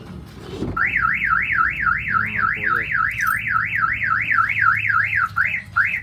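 Aftermarket car alarm siren on a Toyota Lucida van sounding its warble: one high tone sweeping rapidly up and down, about three times a second. It starts just under a second in and cuts off near the end.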